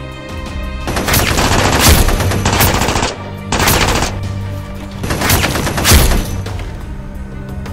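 Several bursts of rapid machine-gun fire, each lasting about half a second to a second, within the first six seconds, over background music with a steady bass line.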